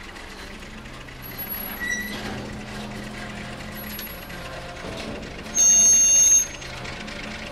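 CFR Class 60 (LDE 060-DA) diesel-electric locomotive hauling a freight train slowly past, its Sulzer diesel engine running steadily, with a couple of brief high squeals. About five and a half seconds in, one short locomotive horn blast of just under a second, the loudest sound here.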